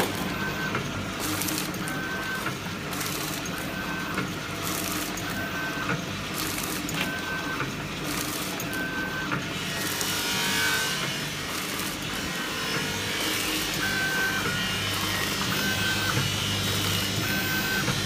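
Vertical sachet packing machine running, forming and sealing powder sachets: a steady motor hum with a short high tone and faint knocks repeating about once a second, in step with the machine's cycle.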